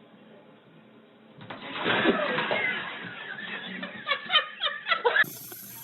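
A person's voice breaks in suddenly and turns into short, rapid bursts of laughter, then cuts off abruptly.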